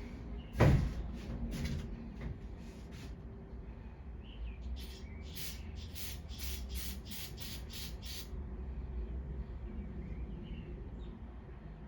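Aerosol carburetor cleaner sprayed in short hissing bursts onto a lawn mower carburetor, with a quick run of about ten bursts in the middle. A single clunk comes about half a second in.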